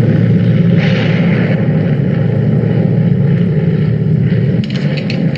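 Steady low drone of airliner engines as heard inside the passenger cabin, with a brief rush of hissing noise about a second in.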